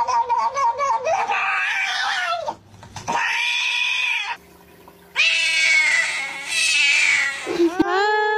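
Cat yowling in long, drawn-out cries, about four of them with short breaks between: a cat in pain crying out even as it keeps eating a treat.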